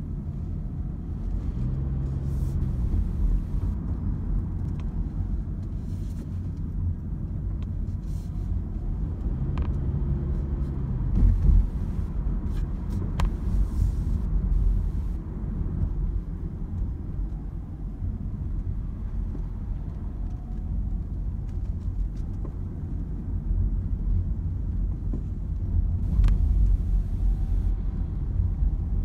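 Car road noise heard from inside the cabin while driving: a steady low rumble, with a brief steady hum from the engine twice.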